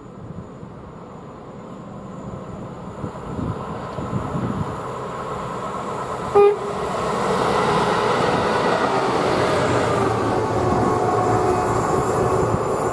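A train approaching and passing at speed, its rush building over the first seconds. About halfway through it gives one short horn toot, the loudest moment, and the passing rush then stays loud and steady.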